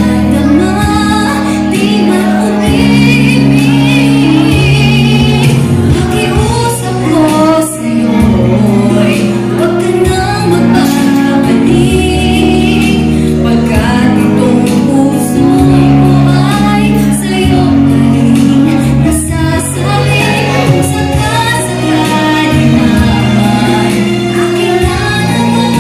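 A woman singing a song into a microphone over instrumental accompaniment, with vibrato on held notes.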